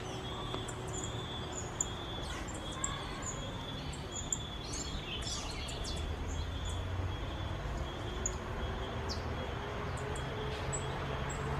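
Wild birds chirping: many short, high chirps scattered through, over steady outdoor background noise and a low rumble.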